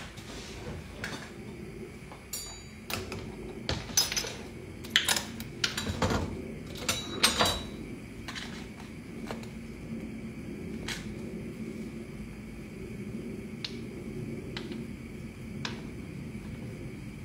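Kitchen clatter of dishes and utensils: a busy run of knocks and clinks in the first half, then a few single clicks, over a steady low hum.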